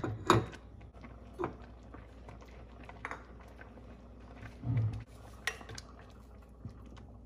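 A slotted spoon stirring vermicelli in milk in a stainless steel pot, knocking and scraping against the pot several times, the sharpest knock just after the start. A short dull low sound about two-thirds of the way in.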